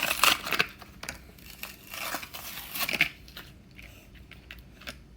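A Hot Wheels cardboard-and-plastic blister pack being torn open by hand: irregular ripping and crinkling in several bursts over the first three seconds, then quieter handling of the packaging.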